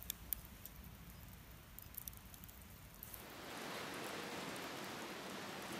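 A few faint scattered clicks, then about three seconds in, the steady hiss of a wood fire burning in a metal fire stand, with logs over glowing embers.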